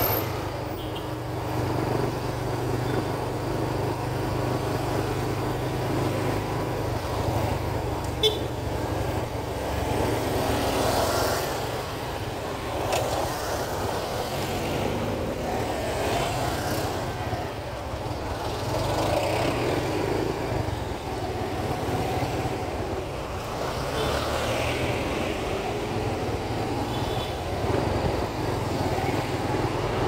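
Ride in a motorcycle tricycle through city traffic: its engine runs with a steady low hum under constant road noise, while cars and motorcycles pass close by in swells. A single sharp click about eight seconds in.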